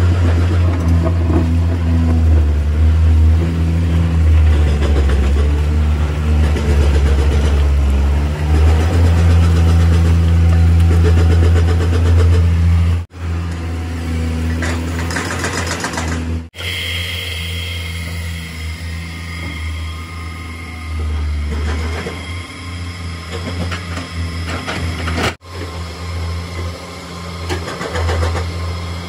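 Tata Hitachi EX200 excavator's diesel engine running hard under digging load, a loud steady low hum with clatter and rattle over it. The sound breaks off and resumes abruptly at several edit cuts, and is somewhat quieter after the first one.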